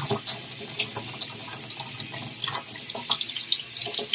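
Water running and splashing in a bathtub, with many small irregular splashes and drips.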